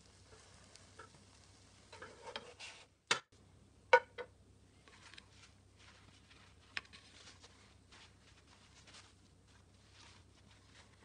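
Butter crackling lightly in a frying pan with scattered small ticks, broken by a few sharp clacks a few seconds in, the loudest about four seconds in, as a nylon spatula lifts the fried sandwich out and is set down in the pan. Paper towel rustles faintly after.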